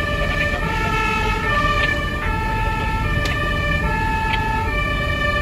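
German two-tone emergency siren (Martinshorn) sounding its alternating high-low "tatütata", each tone held about three-quarters of a second, over the steady rumble of the vehicle driving.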